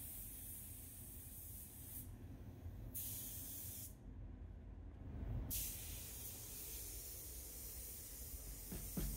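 Faint hiss of an air-fed gravity-feed spray gun spraying primer sealer, broken by two brief pauses where the trigger is let off between passes, about two and four seconds in. A steady low rumble runs underneath.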